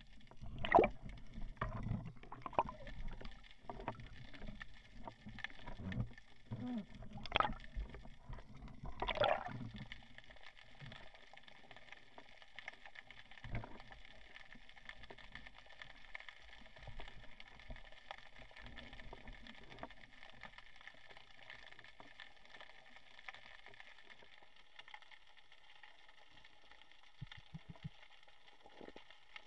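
Water splashing and bubbling around an underwater camera at the surface, in irregular loud bursts for about the first ten seconds. After that, a faint steady underwater hiss, with a few small clicks near the end.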